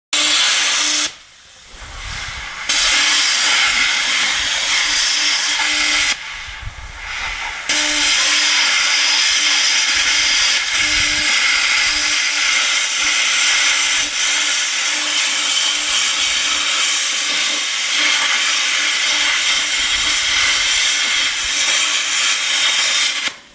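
Handheld plasma cutter cutting through a steel trailer tow hitch: a loud, steady hiss of the arc and air jet. The arc stops twice early on for a second or so and restarts, then cuts off sharply near the end.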